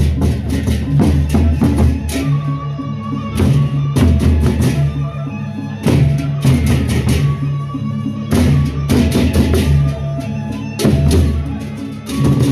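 Gendang beleq ensemble playing: large double-headed barrel drums beaten in fast interlocking strokes, with crashing cymbals and ringing gong tones. The pattern thins briefly and starts up again about every three seconds.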